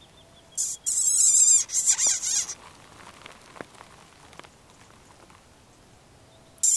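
Mouse squeaks made with the lips to imitate a mouse and lure a predator. A rapid run of high, wavering squeaks lasts about two seconds, and a second run starts near the end.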